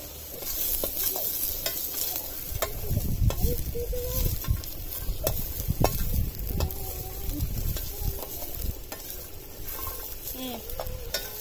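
A metal ladle stirring, scraping and clicking against a steel pot while shallots, garlic and whole spices sizzle in hot oil. A low rumble swells in the middle.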